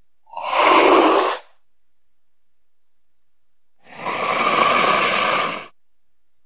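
Cougar (mountain lion) giving two breathy, hissing exhalations with no clear pitch. The first is short, about a second long; the second starts about four seconds in and lasts nearly two seconds.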